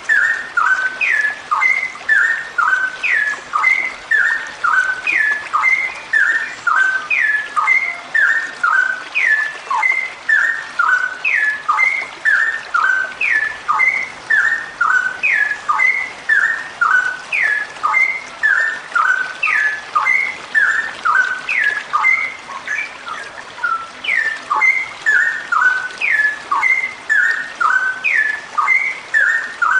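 Female straw-headed bulbul (cucak rowo) calling in a long, unbroken run ("ropel"): quick, clear whistled notes that drop in pitch, about three a second, repeating the same phrase over and over.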